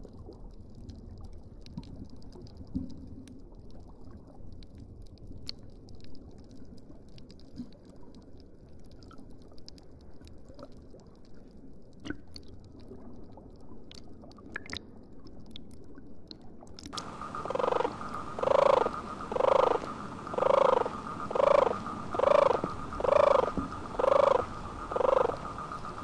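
Faint underwater ambience with scattered sharp clicks. About two-thirds of the way through it changes abruptly to a turtle's repeated calls, about eight of them at roughly one a second, much louder than the ambience.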